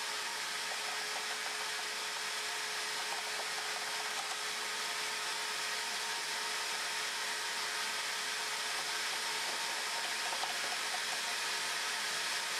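Vacuum cleaner running steadily as its hose nozzle sucks dust and debris out of an opened vacuum's brush housing: a rushing hiss with a faint steady whine.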